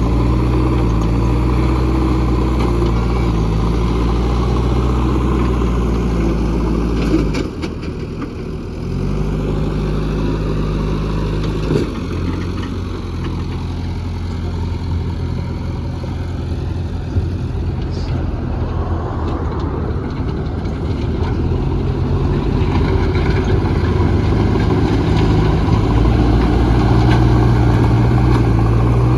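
Diesel engine of a JCB 3DX backhoe loader running steadily, its note dropping briefly about seven seconds in and then picking back up, with a few short knocks from the machine.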